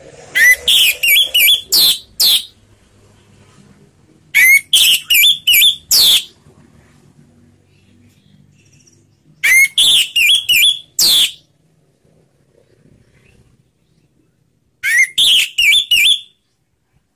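Orange-headed thrush singing its loud ngeplong song in four phrases a few seconds apart. Each phrase is a quick run of high, sweeping whistled notes.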